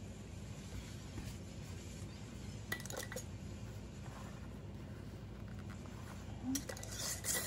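Metal screw bands being set onto wide-mouth glass mason jars and twisted down over their lids: a few light clinks and scrapes about three seconds in and again near the end, over a steady low hum.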